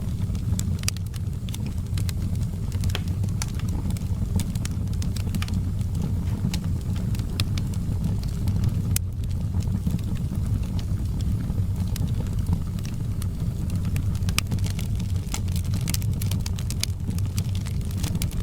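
Wood fire crackling in a fireplace: frequent sharp snaps and pops over a steady low rumble of the burning logs.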